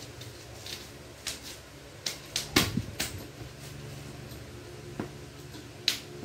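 Irregular sharp clicks and taps of a small microphone mount's parts being handled and fitted together, about a dozen, bunched between two and three seconds in, over a steady low hum.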